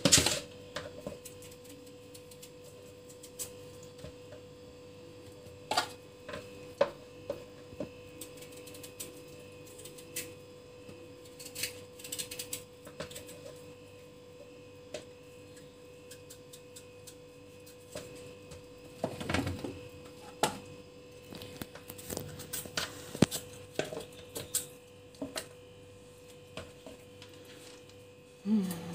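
Scattered small clicks, taps and scrapes of a kitchen knife peeling and cutting squash over a plastic bowl, over a steady electrical hum. A louder knock comes about two-thirds of the way through.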